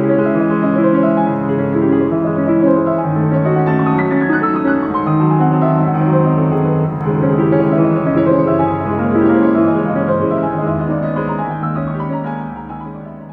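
Steinway grand piano being played: held chords in the bass with a moving melody above, fading out near the end.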